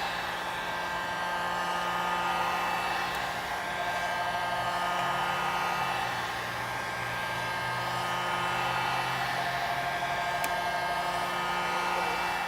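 Handheld hot-air blower running steadily with a constant whine, warming the edge of an iPhone XR screen to soften the display adhesive.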